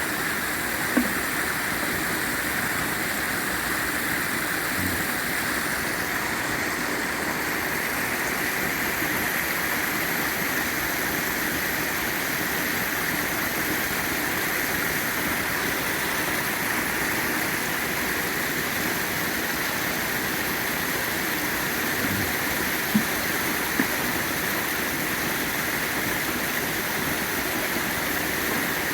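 Pond waterfall running steadily after its spring startup, water splashing down continuously. A few brief clicks sound over it, once near the start and twice about two-thirds of the way through.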